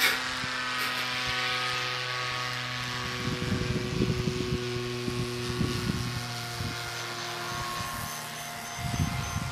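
Electric RC model airplane's motor and propeller droning steadily in flight, the pitch drifting slightly as it passes.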